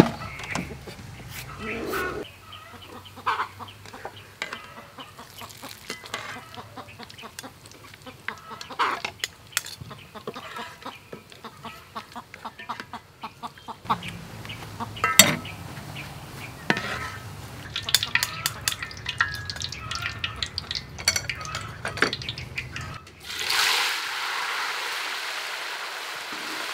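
Chickens clucking, with scattered clicks and knocks of handling. Near the end, tiger shrimp go into hot oil in a wok, and a steady deep-frying sizzle starts and grows louder.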